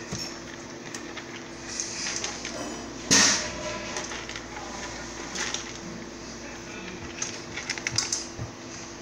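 Hands pressing raw ground-beef patties into stainless steel bowls of dry kibble: small clicks and rattles of kibble against the steel, a cluster of them near the end. One sharp noisy burst about three seconds in, over a steady low hum.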